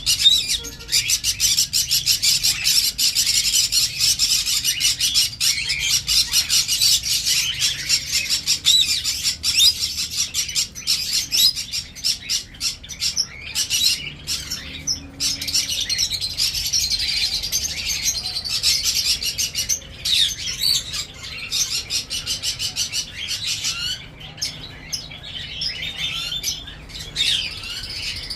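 A flock of small cage birds chirping and calling together in a dense, continuous, overlapping chatter.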